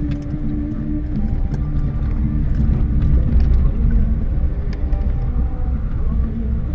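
Car driving over a rough dirt road, heard from inside the cabin: a steady low rumble of engine and tyres, with scattered small knocks and rattles from the bumps.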